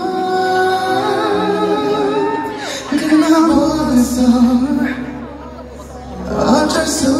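Male singer singing a Korean ballad live into a microphone over amplified backing music. The voice pauses briefly past the middle while the accompaniment carries on, then comes back in near the end.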